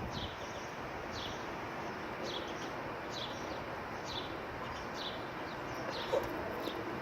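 A small bird chirping over and over, short high falling chirps about once a second, over a steady background hiss.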